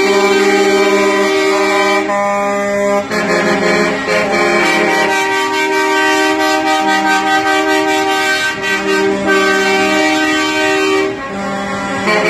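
Several semi-truck air horns blaring at once, held as long overlapping chords whose mix of tones shifts as horns drop in and out, with a short dip in loudness about eleven seconds in.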